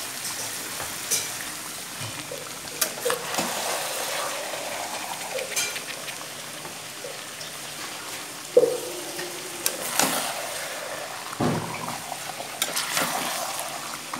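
Chicken curry frying and sizzling in a kadai over a gas flame, with a utensil clinking, scraping and knocking against the pan several times. The loudest knocks come about two thirds of the way through.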